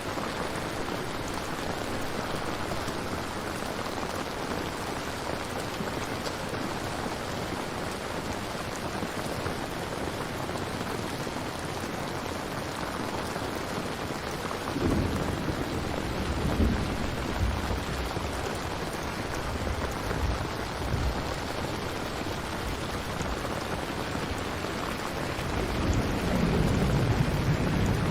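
Steady heavy rain with thunder rumbling twice, about halfway through and again near the end, the second roll louder.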